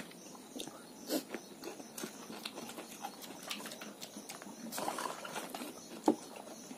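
Close-up eating sounds: scattered light clicks of forks and spoons against bowls and plates, with sipping and chewing.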